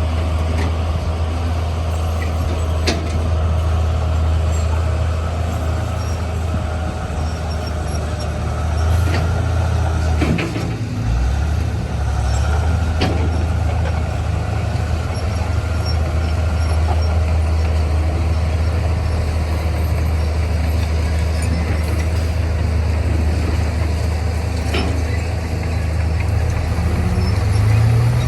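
Heavy diesel earthmoving machine engine running with a steady low drone, with a few sharp metallic knocks. The engine note dips briefly around ten seconds in and rises near the end.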